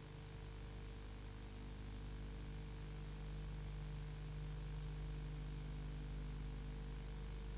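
Steady hiss with a low electrical hum underneath, the background noise of an old analog tape transfer, with no music or speech.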